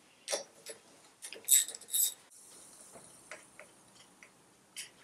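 Irregular metallic clicks and clinks of hand tools, a socket and extension being fitted together and put onto the exhaust manifold nuts of a Citroën 2CV engine. Two louder ringing clinks come about one and a half and two seconds in.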